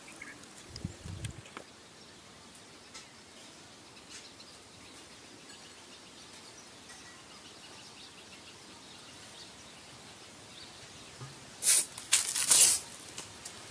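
Faint outdoor background with birds, then, near the end, a pressurised plastic-bottle water rocket lets go: a loud rushing hiss of water and air jetting out of the bottle's mouth, in two quick bursts over about a second.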